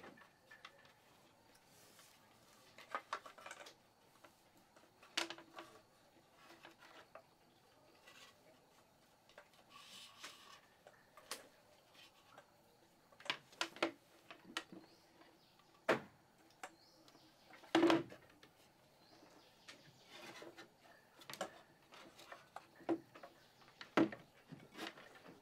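Irregular light knocks and clinks of hard objects being handled, one or a few at a time, over a faint steady background. The sharpest knocks come a little past two-thirds of the way through and again near the end.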